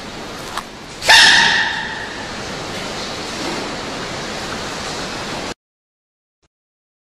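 An animal sneezing once, sharply, about a second in, over a steady background hiss. The sound cuts off abruptly about five and a half seconds in.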